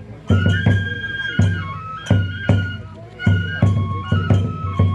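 Oni-kenbai dance music: a high bamboo transverse flute plays a sustained melody over rhythmic taiko drum strokes and sharp clashes of small hand cymbals.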